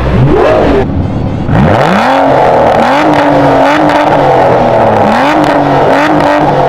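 A Ferrari's engine blips once. Then an Aston Martin DBS's V12 revs up and is held at high revs, sagging and picking up again every second or two.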